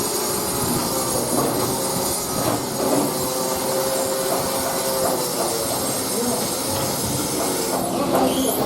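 Machinery running steadily, with a wavering hum and rattling.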